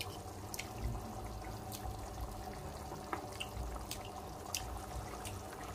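Thick bolognese sauce simmering in a frying pan, bubbles popping irregularly at the surface, over a steady low hum.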